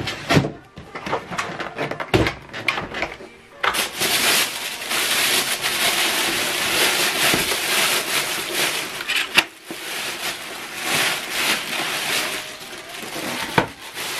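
Loose clear plastic bag crinkling and rustling as it is pulled off a printer. A few scattered rustles and knocks come first, then continuous dense crinkling from about four seconds in.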